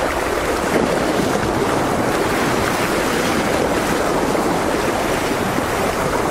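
Sea surf washing against a rocky shore: a steady, even rush of small waves.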